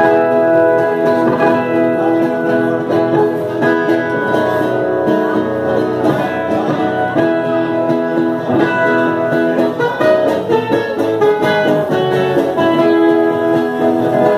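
Viola caipira, the ten-string Brazilian folk guitar, played with an acoustic guitar accompanying: an instrumental duet of plucked strings with no singing.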